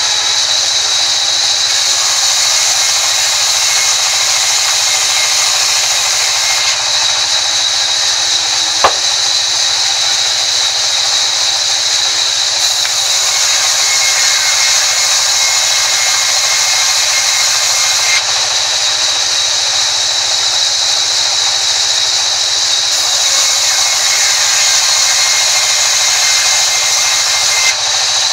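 Sawmill band saw running and ripping a timber plank fed by hand: a steady, loud, high whine with the hiss of the cut. A faint extra tone comes and goes several times, and there is one sharp knock about nine seconds in.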